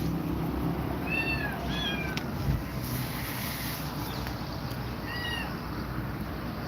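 Kittens meowing: three short, high-pitched meows, about a second in, near two seconds and past five seconds, over a steady low background hum. A soft thump comes about two and a half seconds in.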